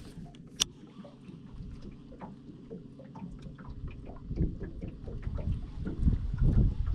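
Wind buffeting the microphone over a steady low hum, the buffeting growing heavier from about four seconds in; a single sharp click about half a second in.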